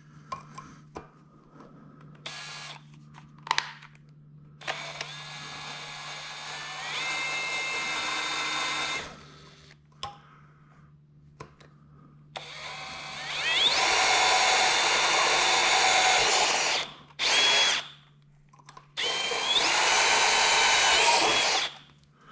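Ryobi cordless right-angle drill boring holes through a metal bracket on a plastic motorcycle front fender, in four short runs, one of them very brief. In each run the motor whine steps up in pitch as it gets up to speed.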